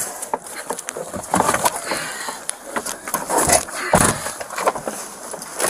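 Rustling and knocks of a close-range struggle as a resisting person is handled by officers, with a sharp knock about four seconds in.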